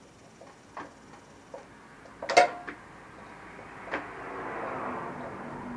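Light clicks of tools and parts being handled, a sharp metallic clank with a short ring about two and a half seconds in, then a steady hiss for about the last two seconds.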